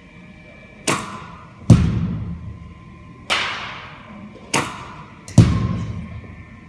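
Bat striking softballs and the balls thudding into the batting cage: five sharp impacts over about four and a half seconds. The second and the last are the heaviest thuds.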